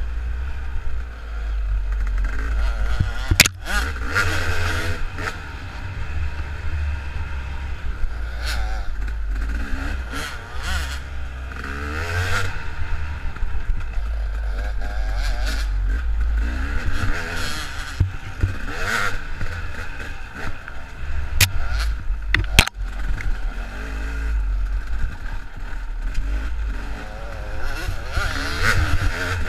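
KTM dirt bike engines revving up and down as they ride a rough wooded trail, with a few sharp knocks along the way.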